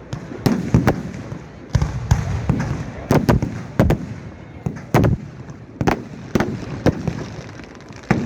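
Fireworks going off: about a dozen sharp bangs at irregular intervals, some with a short echo after them.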